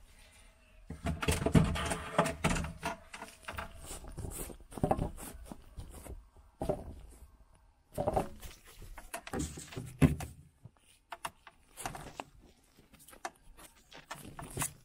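Irregular knocks, thunks and rustles from plastic refrigerator parts, wiring and the camera being handled during disassembly.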